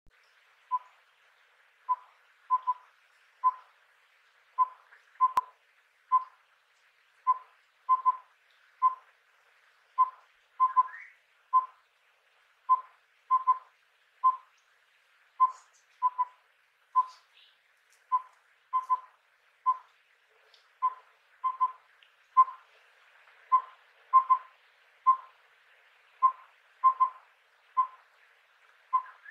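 Collared owlet (collared pygmy owl) repeating its mellow four-note whistled phrase, 'wüp-wüwü-wüp', with all notes on one even pitch. The phrase comes about once every three seconds.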